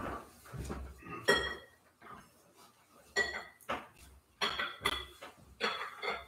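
Glass cruets and metal altar vessels clinking about five times, each clink ringing briefly as they are handled and set down. This is the handling of the vessels during the ablutions after Communion.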